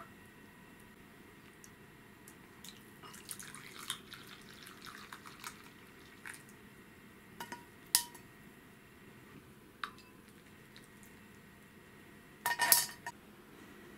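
Thin liquid trickling from an enamel pan through a wire-mesh sieve into a glass bowl, with a spatula scraping the pan. A sharp knock about eight seconds in, and a louder clatter of kitchenware near the end.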